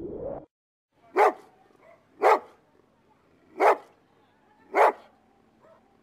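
Rottweiler barking: four single barks about a second apart.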